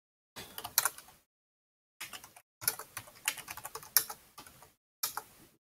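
Typing on a computer keyboard: four short bursts of quick keystrokes separated by brief pauses, as short terminal commands are entered one after another.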